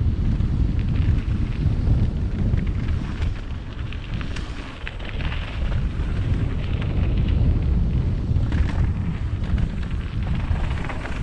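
Wind buffeting the microphone of a camera on a mountain bike descending a dirt trail, a steady low rumble, with the scattered clatter of the tyres and bike over the ground.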